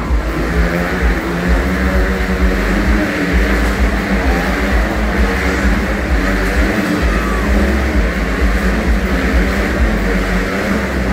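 Several motorcycle engines running hard as the riders circle inside a steel-mesh globe of death, blending into one steady, overlapping drone.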